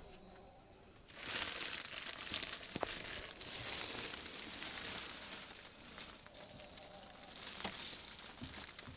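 Crinkling and rustling noise that starts about a second in and runs on, with a few sharp clicks, the kind made by clear plastic seat wrapping being brushed.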